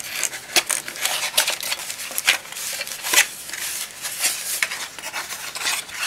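Cardboard packaging being handled: an irregular run of scrapes, rustles and sharp clicks as flaps and a cardboard insert are lifted out of the box.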